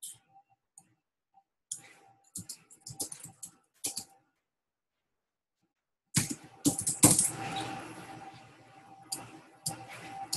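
Typing on a computer keyboard: keystrokes in short runs of sharp clicks. From about six seconds in there is a louder, denser stretch of clicking over a steady background noise with a faint hum.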